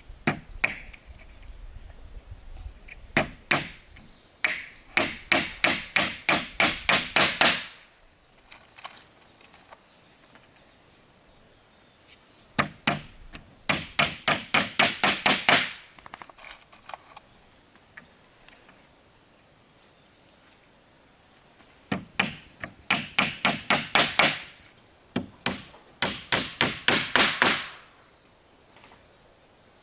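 Hammer driving nails into wooden boards in quick runs of blows, about three to four a second, in four bursts with pauses between them. A steady high insect drone runs underneath.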